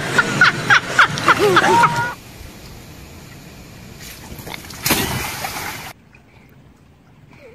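Excited voices shouting, then a garden hose spraying water in a steady hiss that grows louder about five seconds in and cuts off abruptly about six seconds in.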